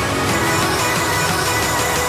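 Electronic music with a steady beat.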